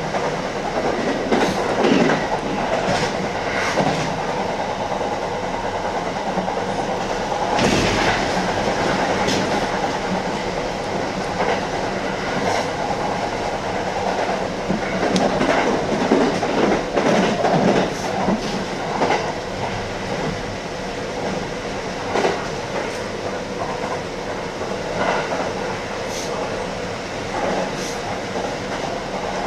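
Kintetsu electric train running, heard inside the front car: a steady running rumble with irregular clicks and knocks as the wheels pass rail joints and the points, one louder knock about eight seconds in.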